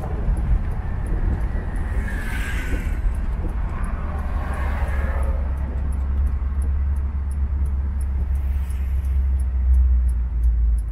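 Crate 350 cubic-inch small-block V8 of a 1957 Chevrolet Bel Air convertible rumbling steadily through its dual exhaust at cruising speed, with road and wind noise. A brief swell of noise comes about two seconds in and again around four to five seconds.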